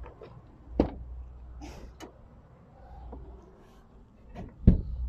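A few scattered light knocks, then a sharp clunk near the end as the driver's door of a Ford Transit van is opened.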